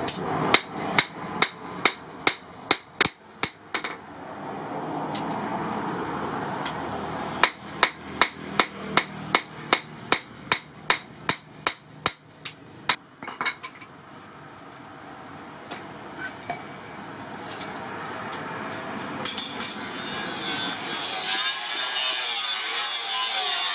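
Hand hammer striking a spring-steel knife blade on an anvil in quick, even blows, about three a second, in two runs. Near the end an angle grinder with a flap disc starts grinding the blade, a steady high hiss.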